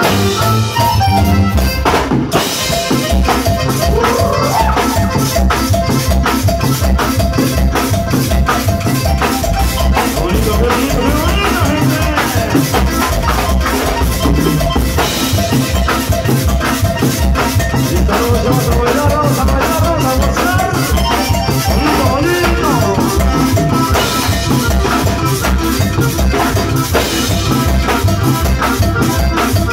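Live cumbia band playing an instrumental passage: drum kit and hand percussion with a shaker keep a fast, steady beat under a melody line. The beat breaks off for a moment about two seconds in, then carries on.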